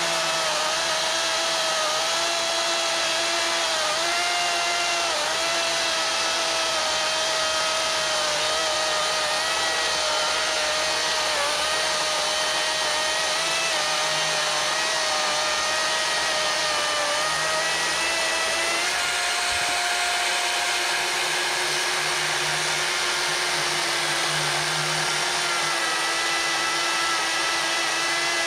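Craftsman V60 brushless cordless chainsaw (CMCCS660) cutting through a pine log. Its electric motor and chain make a steady whine at a single speed, and the pitch sags a little each time the bar bites into the wood, then recovers.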